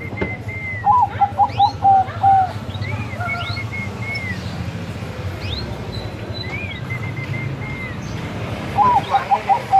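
Perkutut bangkok zebra dove cooing: a phrase of about six short, quick coos ending on a longer note, heard twice, about a second in and again near the end. Higher chirping calls from another bird recur every few seconds between the phrases.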